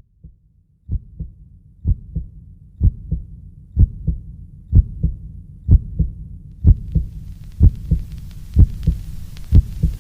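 Heartbeat sound effect: paired low thumps (lub-dub) about once a second, starting about a second in and holding a steady pace, with a faint hiss joining near the end.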